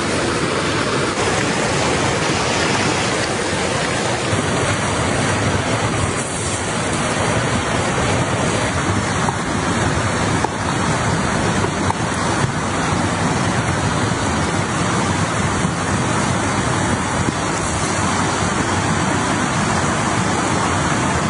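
A rocky mountain stream rushing over stones, a loud, steady flow of water.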